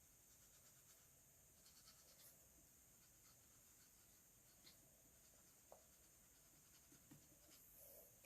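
Faint scratching and light taps of a marker drawing on a surface.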